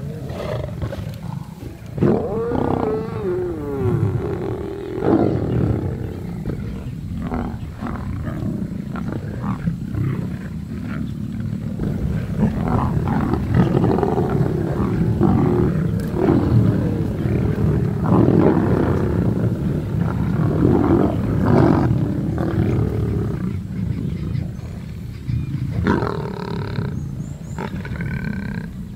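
Lions growling and snarling over a freshly caught buffalo calf, squabbling as they feed on the kill. A continuous low rumble of growls runs throughout, with repeated louder, wavering snarls rising out of it.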